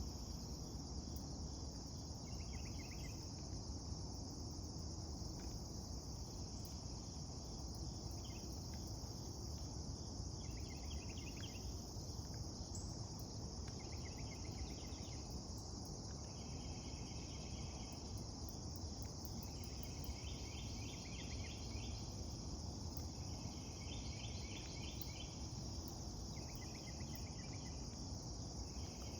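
Singing insects: a steady high-pitched drone, with a second insect's pulsed trill repeating in short bouts about every two to three seconds over it.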